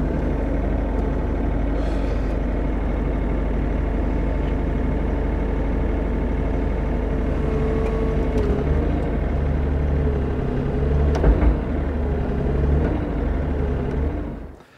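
Bobcat E50 mini excavator's diesel engine running steadily. In the second half a wavering higher tone comes in, with a brief louder spell about eleven seconds in, and the sound fades out near the end.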